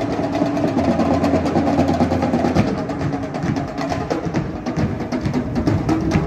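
Marching drumline playing a fast, busy drum cadence, with snare rolls and bass drum hits.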